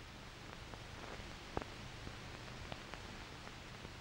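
Faint steady hiss with a low hum and scattered small clicks and pops: the background noise of an old 16 mm film soundtrack.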